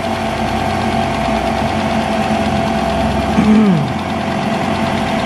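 FMC 30 pillar milling machine running steadily, its motor and spindle giving an even mechanical hum with a few constant tones, while it mills the welded joint face of a motorcycle crankcase. About three and a half seconds in, a short tone rises and falls over it, the loudest moment.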